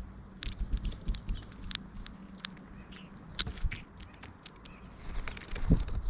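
Scattered light taps and clicks at an irregular pace, a few of them sharper, over a low background rumble.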